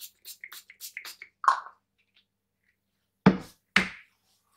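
Quick short spritzes of a hand-pump light cooking-oil spray into a metal springform cake tin, about four or five a second, stopping about a second in. Then a short knock, and near the end two sharp knocks about half a second apart.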